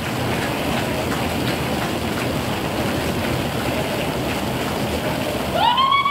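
Audience applause: steady, dense clapping. Shouting and whooping voices join in near the end.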